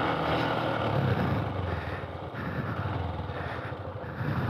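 Motorcycle engine running at low revs, getting quieter about halfway through.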